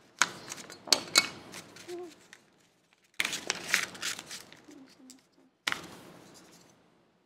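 A folded paper cone rustling and crinkling with sharp little clicks as it is handled and fitted into the neck of a small bottle, in three short bursts.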